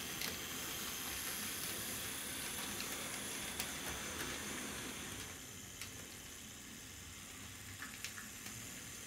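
Bachmann HO-scale Strike Force model train running on its track: a steady hissing rolling noise with scattered clicks from the wheels on the rails. It gets somewhat quieter about five seconds in.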